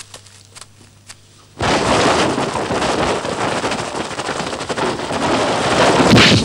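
A loud, dense crackling rush of noise from a drama's sound effects starts suddenly under two seconds in, as a black-clad fighter leaps through the trees, and runs on evenly, swelling just before it stops near the end. A few faint clicks come before it.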